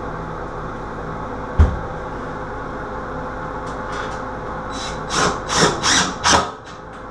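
A single knock about a second and a half in, then a cordless drill driving a screw through a medicine cabinet into the wall in four or five short bursts near the end.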